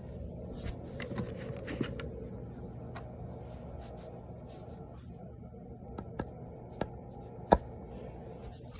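Scattered small clicks and taps over a low steady hum, with one sharper click about seven and a half seconds in.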